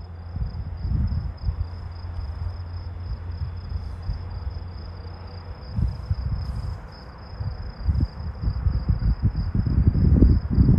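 Crickets trilling steadily in the night, a thin continuous high-pitched tone, over uneven low rumbling thumps on the phone's microphone that grow stronger near the end.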